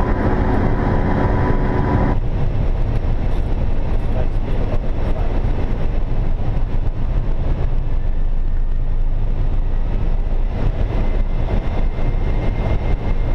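Airbus A380 flight-deck noise in flight: a loud, steady low rumble of airflow and engines. For about the first two seconds a brighter hiss with a steady high tone rides on top and cuts off suddenly.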